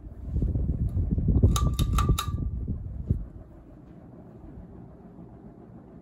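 NuTone Verandah Deluxe ceiling fan running on a floor test with a steady low hum. For the first three seconds or so a much louder low rumble covers it, with four quick sharp clicks with a ringing tone in the middle.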